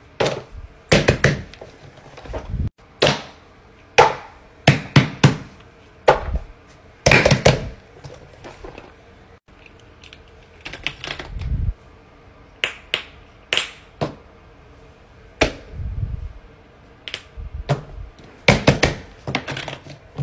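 Plastic and silicone fidget toys handled and set down on a paper sheet over a wooden floor: an irregular string of sharp taps and clacks, some in quick clusters, with a couple of duller low thuds.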